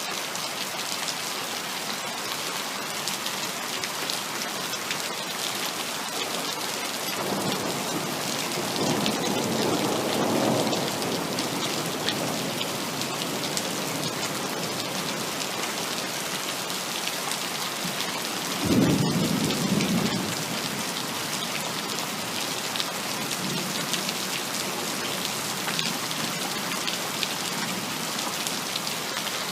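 Heavy rain falling steadily. A low roll of thunder swells and fades about a quarter of the way in, and a sudden, louder thunderclap rumbles out just past the middle.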